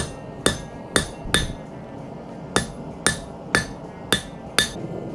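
Forging hammer blows on metal while knocking in the corners of a knife guard. There are nine sharp ringing strikes at about two a second, with a short pause after the first four.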